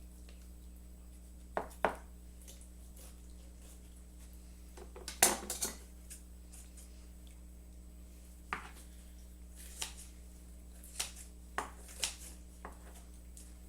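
Scattered sharp clicks and knocks of a knife and kitchen shears handling a whole raw chicken as it is cut apart, the loudest a short cluster about five seconds in. A low steady hum runs underneath.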